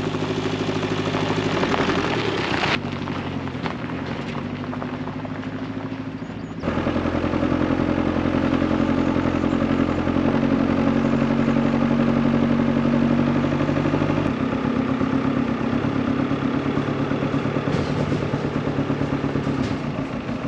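A motor vehicle engine running steadily, its pitch and level changing abruptly a few times.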